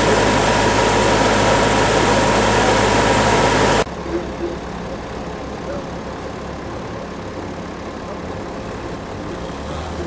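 Large bandsaw sawmill blade cutting through a sinker cypress log: a loud, steady sawing noise with one steady tone running through it. About four seconds in the sawing drops away suddenly, leaving the mill's engine running more quietly.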